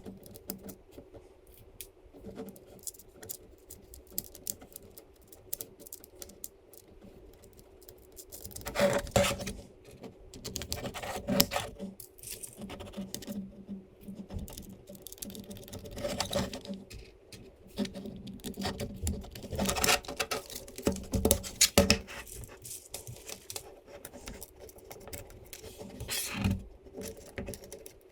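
Hands handling and fitting 3D-printed plastic parts and small metal hardware: irregular clicks, scrapes and rattles, with louder clusters of clatter about a third of the way in and again around the middle, over a faint steady hum.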